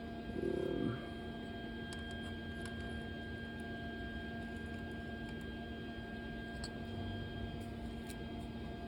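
Steady low electrical hum with a faint background, a brief low sound about half a second in and a few faint clicks.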